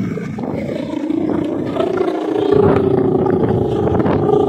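Hummer (guangan) on a large Balinese bebean kite droning in strong wind, its pitch rising over the first two seconds or so and then holding steady, over wind rumble on the microphone.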